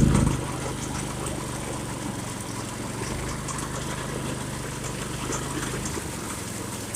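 Go-kart's small engine running steadily, easing off from a louder pitch in the first half second to a lower, even run. It weakens about six seconds in.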